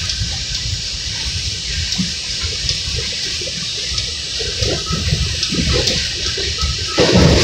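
Running noise heard inside an R32 subway car: a steady rushing hiss over an uneven low rumble, which grows louder near the end.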